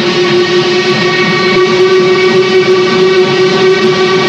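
Norfolk & Western articulated steam locomotive's whistle sounding one long, steady blast over the rough low rumble of the working locomotive.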